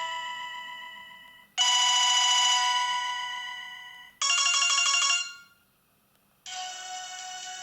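Panasonic KX-TU250 phone playing its ringtones through its small loudspeaker, one after another. A chiming tone fades out, a new one starts about a second and a half in and decays, a short fast-pulsing tone follows about four seconds in, and after a brief gap a quieter melody begins near the end.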